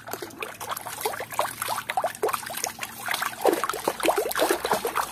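A hand sloshing and scrubbing a plastic toy under water in a plastic basin: irregular splashing and swishing of water.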